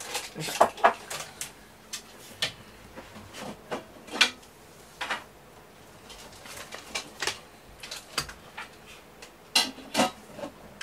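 Irregular light clicks and taps, a dozen or so, with a few sharper knocks about a second in, near four seconds and near the end.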